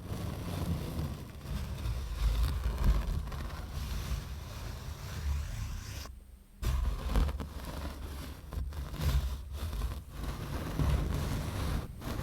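Close-miked scratching and rubbing on an object, with a heavy low rumble; it breaks off for about half a second about six seconds in.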